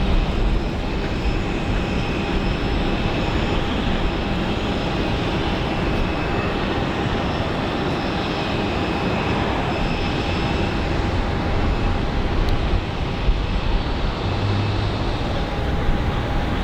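Jet airliner's engines running loud and steady, a broad rushing noise with a thin high whine over it.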